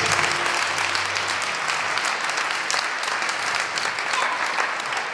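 Audience applauding: dense clapping that slowly thins out and fades toward the end.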